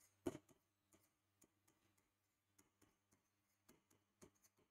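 Faint, irregular taps and clicks of a marker pen on a writing board as digits and plus signs are written out, the sharpest about a third of a second in.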